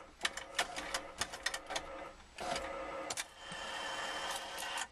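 Smart Industries claw machine's crane mechanism running: a quick string of clicks with motor whirring, then a steadier whir with a faint high tone in the second half.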